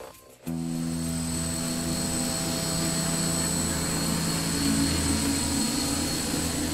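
SIGMA HEXA-600C hexacopter's electric motors and propellers running steadily in flight. The sound starts suddenly about half a second in, as a steady low hum with a thin high whine over it.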